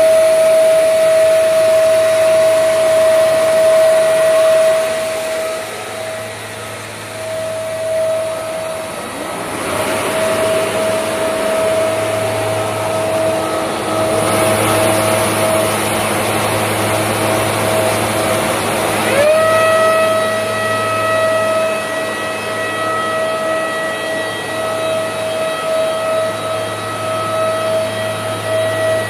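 Four-sided planer/moulder running, its spindle motors giving a steady whine over a low hum. About two-thirds of the way in, a tone glides up and settles into a new steady whine, as a spindle spins up to speed.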